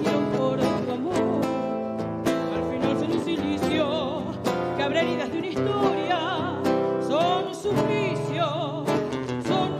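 A tango played on two acoustic guitars, plucked notes ringing out, with a woman's voice coming in a few seconds in and holding long notes with a wide vibrato.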